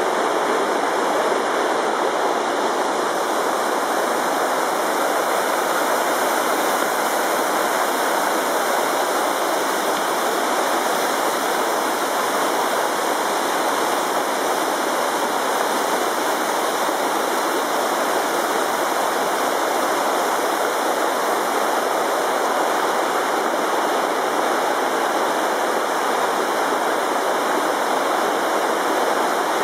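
The glacier-fed Carbon River raging in a steady, unbroken rush of fast water over its rocky bed.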